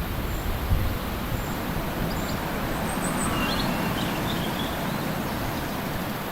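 Steady rush of a waterfall's falling water, with a few faint bird chirps about three to four seconds in. Low wind rumble on the microphone fades out about a second in.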